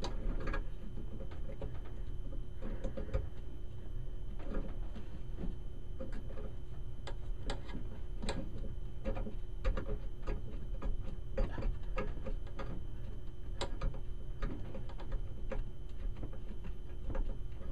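A water hammer arrestor being threaded by hand onto a washing-machine supply valve: scattered light clicks, taps and scrapes of metal fittings and hands, irregularly spaced, over a steady low hum.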